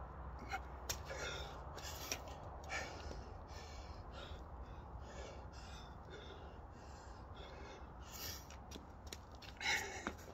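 A man breathing hard and fast, with exhalations coming about every half second, winded from nonstop burpees and squats. A few sharp clicks fall between the breaths, and a louder gasp comes near the end.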